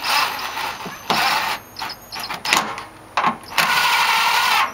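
Cordless impact driver running in short bursts as it drives in the fan shroud's bolts. There are two longer runs, one at the start and one near the end with a steady whine, and a few brief blips between them.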